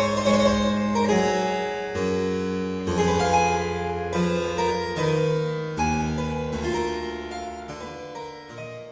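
Harpsichord playing a piece in several parts, a bass line under plucked notes with bright, sharp attacks; it grows quieter near the end as the piece winds down.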